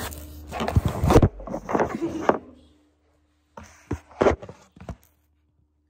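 Handling noise close to the microphone: a paper surgical face mask rustles and rubs against it, with knocks as the camera is moved. There are two bursts, one in the first two and a half seconds and another around four seconds in, with a brief silence between them.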